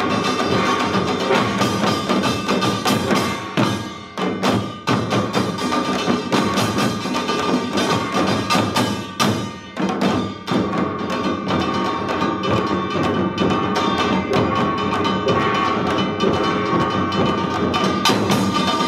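Korean samulnori percussion ensemble playing a fast, dense rhythm on janggu hourglass drums and buk barrel drums, with a metal gong ringing over the drumming. The playing thins out briefly twice, about four seconds in and again around nine to ten seconds in.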